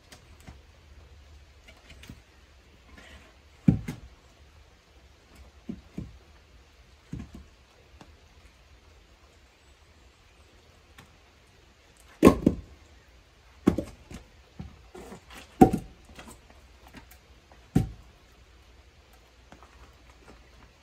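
Heavy blows of a splitting tool striking hardwood firewood: about eight sharp thunks at uneven intervals, the hardest ones coming in a run about twelve to sixteen seconds in.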